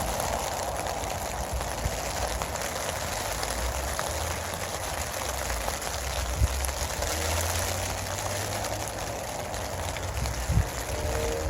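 Steady rain falling on a homemade tent, with a low rumble underneath and two sharper knocks, one past the middle and one near the end.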